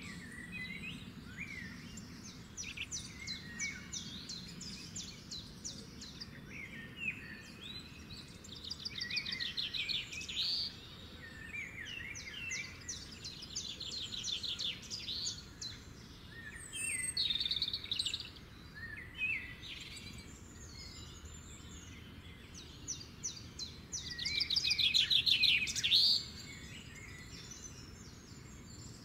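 Several birds singing together: chirps and short whistled phrases alongside repeated rapid trills about two seconds long, the loudest trill near the end. A low steady background noise runs underneath.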